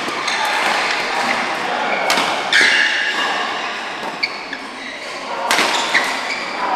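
Badminton rally in a large echoing hall: sharp racket-on-shuttlecock hits about two seconds in and again near five and a half seconds, over players' voices and court noise.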